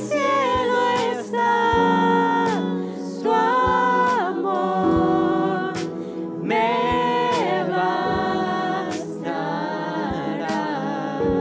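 A Spanish-language worship song: voices singing long held notes over sustained accompaniment chords.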